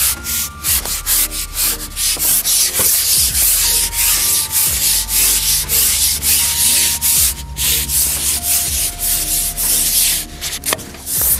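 Fishing pole rubbing and scraping against a slipped-down clip-on microphone as the pole is shipped back with a fish on: loud, rough rubbing in quick irregular strokes.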